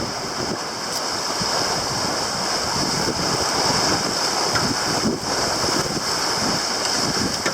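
Water rushing along the hull of a sailboat under way, with wind buffeting the microphone: a steady, even rush throughout.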